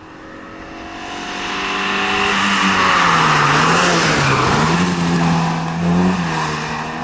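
Race car engine at high revs approaching and passing close by, growing louder over the first three seconds and loudest around three to four seconds in, its engine note dipping and rising again as it goes past.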